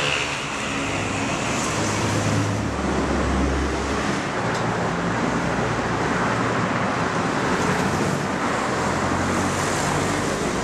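Steady road traffic noise with vehicle engines running nearby; a low engine note swells about three seconds in.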